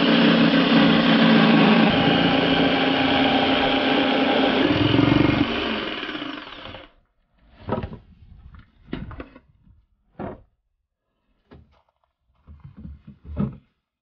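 Handheld electric power saw running steadily as it cuts a wooden board, winding down about five seconds in. After it stops come a few separate knocks of wood being handled.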